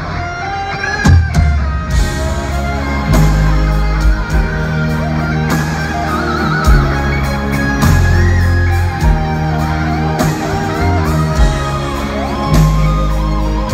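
Heavy metal band playing live through a big hall's PA: distorted electric guitars, bass and drums, with a wavering held lead line about six seconds in.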